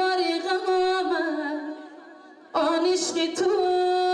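A woman singing a Tajik song into a microphone in long, wavering held notes. Her phrase fades out just before two seconds in and a new long note begins about half a second later.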